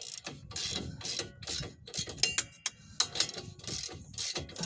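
Hand ratchet clicking in short, repeated back-and-forth strokes on the lower ball joint castle nut of a 1999 Dodge Ram 1500's steering knuckle. The ball joint stud spins with the nut, so each stroke only turns the stud instead of backing the nut off.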